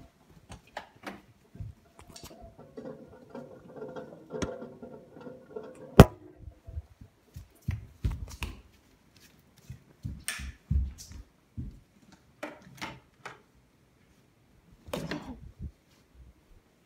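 Scattered clicks, knocks and rustles of a phone being carried and handled while walking through a house, with one sharp, loud click about six seconds in. A faint hum runs for a few seconds before that click.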